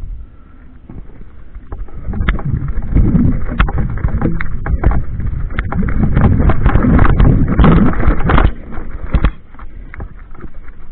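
Mountain bike going down a steep, rough trail: the tyres rumble over stones and the frame rattles with many small knocks. Wind buffets the microphone. The noise swells about two seconds in and drops off about nine seconds in.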